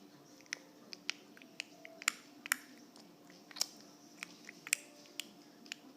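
Mouth clicks, sharp and irregularly spaced, about fifteen over six seconds: a newly learned clicking noise.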